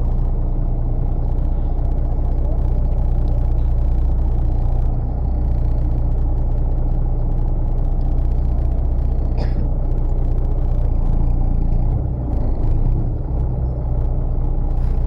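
Fishing boat's engine running steadily with a deep, continuous hum, and one brief high chirp about nine seconds in.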